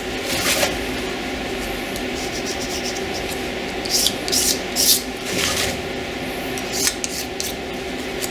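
Razor blade scraping softened gasket residue off the deck of an aluminum cylinder head in short, separate strokes, three in quick succession about four to five seconds in. A steady hum runs underneath.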